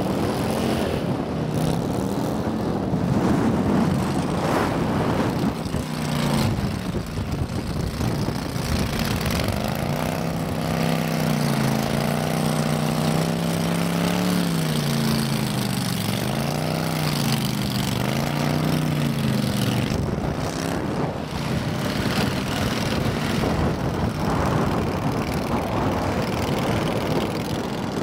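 Long-shaft mud motor on a jon boat running across shallow mud, its engine pitch rising and falling again and again as the throttle changes, over a steady rush of churned water and mud.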